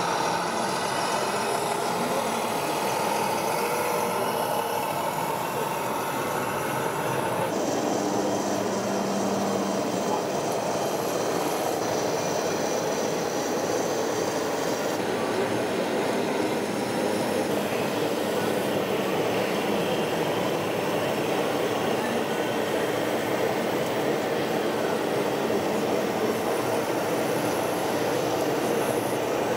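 Radio-controlled model trucks running: a steady mechanical din of small electric drives and gearing, with a squealing whine, in a reverberant show hall. The sound changes about seven seconds in.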